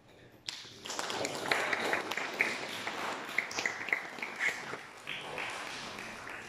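Audience applauding, starting suddenly about half a second in and fading near the end.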